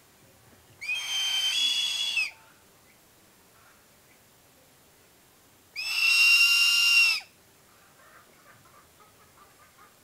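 Crested serpent eagle calling twice: two loud, high whistling screams, each about a second and a half long, about four seconds apart, the first jumping up in pitch partway through.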